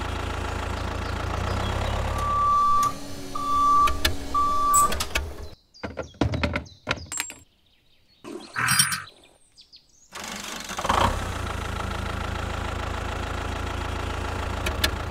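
Tractor engine idling with a steady hum, with three short, even beeps between about two and five seconds in. The hum drops out for a few seconds of clicks and light handling noises, then resumes idling steadily.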